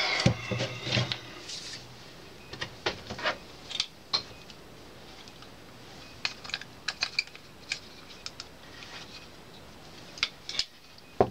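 Irregular light clicks and taps of plastic and metal turntable parts being handled and turned over by hand, with a louder knock near the end.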